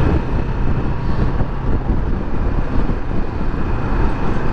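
Steady wind rush and road noise on a moving motorcycle, with a Kawasaki Versys 650's parallel-twin engine running under it. The engine is held at low revs because it is still being run in.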